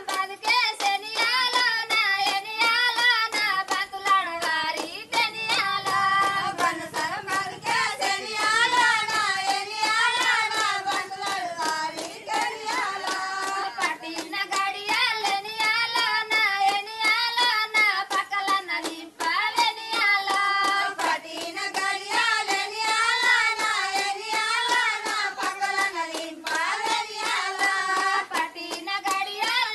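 A group of women singing a song together, keeping time with steady rhythmic hand claps.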